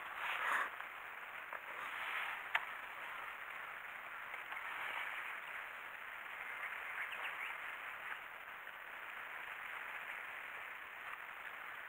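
Faint outdoor seaside ambience: a soft, even hiss of moving water and air, with one sharp click about two and a half seconds in.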